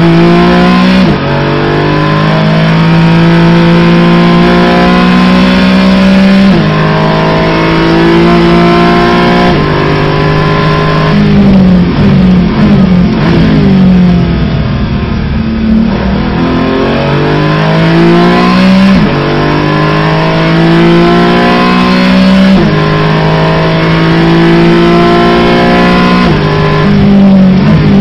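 Porsche GT4's flat-six engine heard from inside the cockpit at full throttle, revving up through the gears with a sudden drop in pitch at each upshift. Around the middle the revs fall in steps as the car brakes and downshifts for a corner, then it climbs through the gears again, with another downshift near the end.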